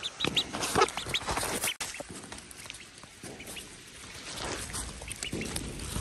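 Young black duckling peeping, a string of short high calls that come thickly in the first couple of seconds and then more sparsely.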